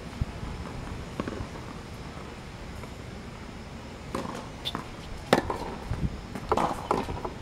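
Tennis rally on an outdoor hard court: rackets striking the ball and the ball bouncing, heard as sharp pops, one about a second in and several from about four seconds on, over a steady low rumble.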